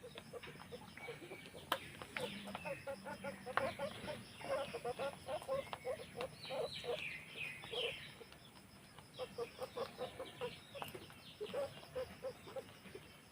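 Guinea pigs calling: a steady run of short, quickly repeated squeaks, with a burst of higher, sliding whistle-like calls about six to seven seconds in.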